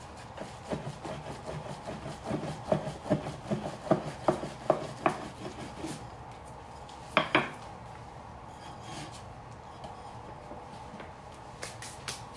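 Wooden rolling pin rolling dumpling wrappers on a wooden board: rubbing with a steady run of knocks, about two or three a second, as the pin rolls back and forth. Two louder knocks come about seven seconds in, then only quieter rubbing.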